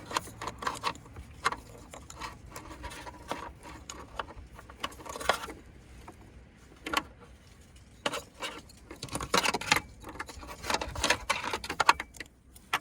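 Plastic wiring connectors and the harness being handled and fitted together: irregular small clicks, rattles and rustles, busiest in the last few seconds.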